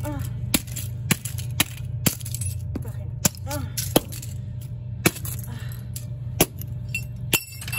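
Chunky platform shoes stepping on small plastic toy cars and model train cars on concrete, giving sharp cracks, snaps and heel clacks about once a second at uneven intervals, over a steady low hum.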